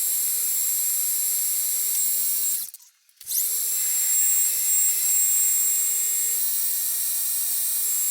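Harrison M250 metal lathe running, a steady mechanical hum with a high whine and hiss. About two and a half seconds in it cuts out almost to silence for about half a second, then starts again with a short rising whine as it comes back up to speed.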